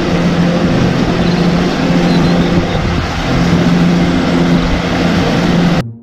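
Wheel loader's diesel engine running steadily under load while it plows snow with a plow blade: a constant low hum over a rough engine noise.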